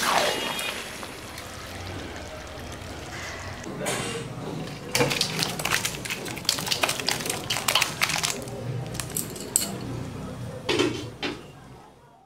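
Metal spoon clinking and scraping against a cooking pot and dish as a finished curry is taken off the stove and served out, with a quick run of sharp clinks in the middle. The sound cuts off near the end.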